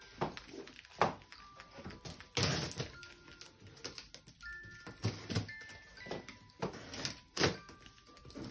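Cardboard box being handled and opened: irregular knocks and thumps on the cardboard, with a longer scraping rip about two and a half seconds in.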